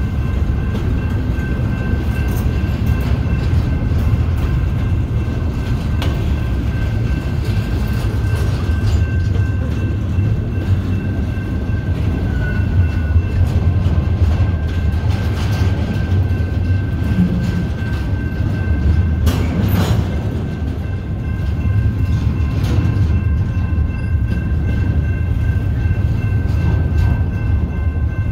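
Container cars of a BNSF intermodal freight train rolling past: a steady heavy rumble of steel wheels on rail, with a thin steady high ring above it. A few sharp clanks come through, the loudest about twenty seconds in.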